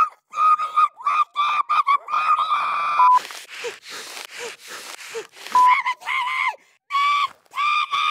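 A high-pitched, squeaky cartoon puppet voice squealing and shrieking in excitement, then gasping, wheezy breaths about three seconds in, then more squeals near the end. A short beep cuts in a few times.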